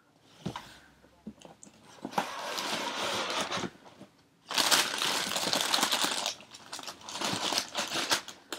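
White tissue paper inside a shoebox rustling and crinkling as it is folded back from a pair of sneakers, in three long bursts, after a couple of short knocks near the start.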